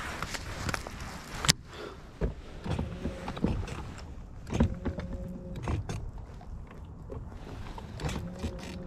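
Clicks and knocks from handling a baitcasting rod and reel on a small fishing boat, with one sharp click about a second and a half in. A low hum comes on twice, once in the middle and again near the end.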